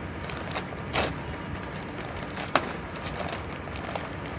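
Plastic packaging being handled and opened by hand: a short crinkle about a second in, a sharp click just past the middle and a fainter tap near the end, over a steady background hiss.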